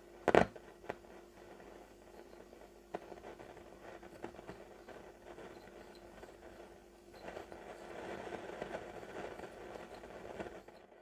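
Telefunken Opus 8 tube radio's loudspeaker giving a faint crackle and hiss over a steady hum while it is tuned, with no station coming through. There is one short, loud crack just after the start, and the noise swells in the last few seconds.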